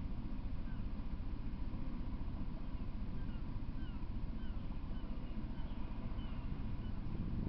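A bird giving a string of short, downward-sliding chirps, about two a second, over a steady low rumbling noise.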